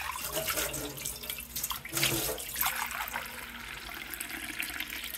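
Kitchen tap running water into a glass cup held under it in a stainless steel sink, with a few short knocks as the glass is handled.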